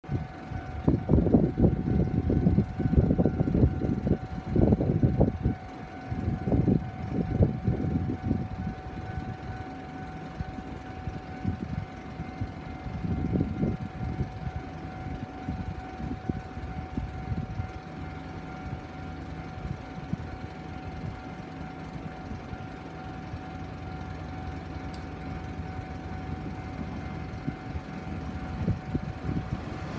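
A level-crossing warning bell ringing continuously. For the first eight seconds or so, gusts of wind buffet the microphone, and a low rumble builds near the end as a train approaches.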